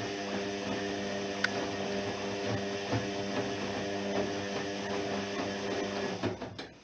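Privileg 3020 washing machine running, a steady motor hum with a few light clicks, cutting off a little over six seconds in.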